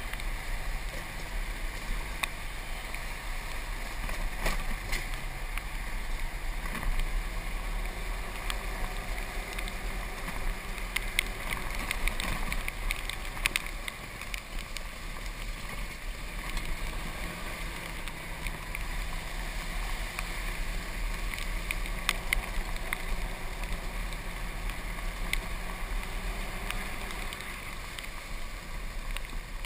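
Golf cart driving over a wet dirt road: a steady low motor-and-tyre rumble with wind buffeting the microphone, and scattered small clicks and knocks from bumps and rattles.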